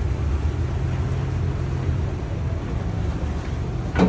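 Boat engine running with a steady low drone under an even rush of noise; a single short knock near the end.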